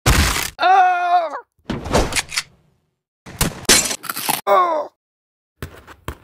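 Dubbed action sound effects for a dinosaur attack: several short noisy crashes and bangs, with two short high-pitched cries, one about a second in and a falling one near the middle.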